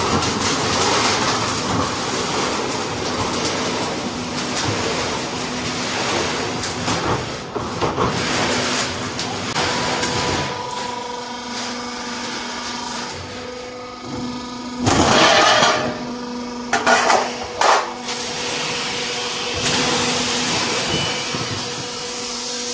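Trapezoid roof-panel roll forming machine running, with a dense mechanical noise as the steel sheet feeds through the forming rollers. From about halfway a steady drive hum takes over. A loud burst of noise comes about two-thirds through, and two short sharp bangs follow soon after.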